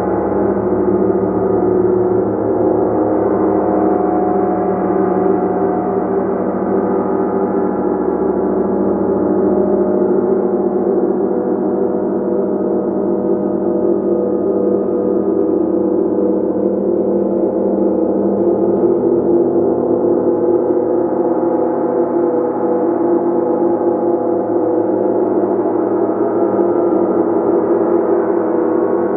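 Gong played continuously: a dense, sustained ring of many overlapping tones, steady in loudness, with no gaps or clear single strikes.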